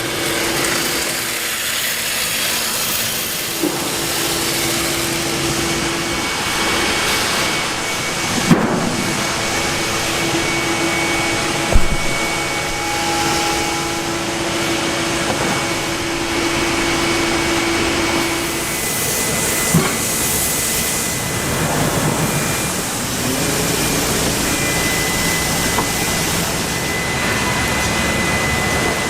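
Woodworking machinery running steadily with a constant hum and hiss, with a few sharp knocks of wood or metal about 8, 12 and 20 seconds in.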